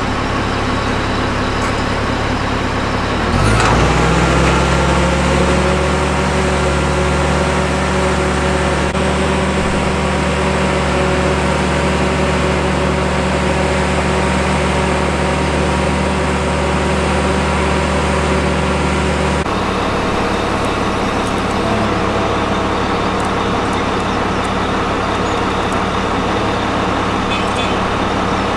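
Engine of a large boom-type container handler (reach stacker) running. About three seconds in it revs up and holds at a higher speed while the boom and spreader are worked into position over a helicopter, then drops back to idle about twenty seconds in.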